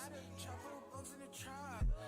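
Hip-hop background music: a rap beat with deep bass and heavy kick hits, and a vocal line over it.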